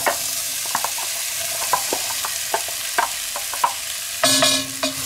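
Diced raw potatoes tipped into hot oil in a cast-iron Dutch oven: steady sizzling, with irregular clicks and taps as the pieces land. Near the end there is a brief louder scrape as the last pieces are pushed out of a plastic container with a wooden spatula.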